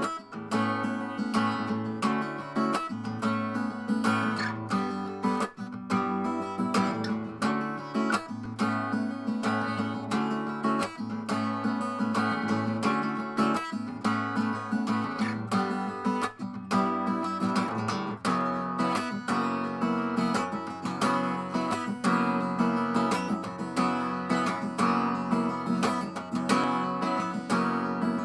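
Background music: acoustic guitar playing steadily, plucked and strummed.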